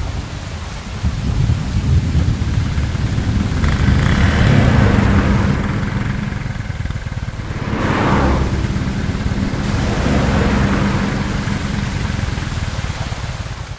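Heavy rain falling, with thunder and a motorcycle engine running; the noise swells twice, about four and eight seconds in.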